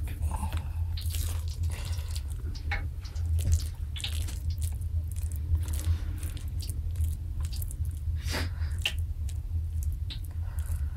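Metal spoon scooping and spreading a moist vegetable-and-potato boolani filling onto rolled dough: soft squishing with scattered scrapes and taps of the spoon. A steady low rumble runs underneath.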